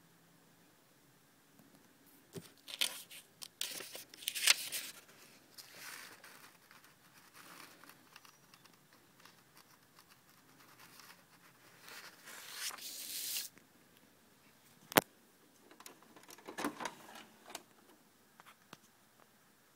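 Printed paper sheets being handled, rustling and crinkling in irregular bursts, with one sharp click about fifteen seconds in.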